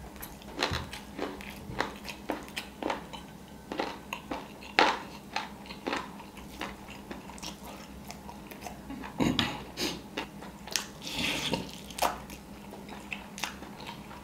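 Close-up mukbang eating sounds: a man chewing mouthfuls of biryani, with many irregular wet smacks and clicks of the mouth, and soft squishing as his fingers mix and scoop the rice.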